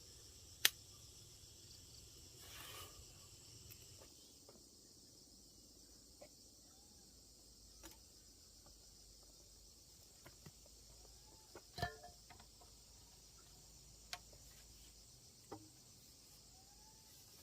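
Faint, steady chirring of insects, with scattered sharp clicks and knocks over it; the loudest knock comes about twelve seconds in.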